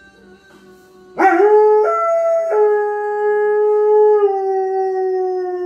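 German Shorthaired Pointer howling: one long howl that starts suddenly about a second in, breaks in pitch twice in its first second and a half, then is held and slowly slides down.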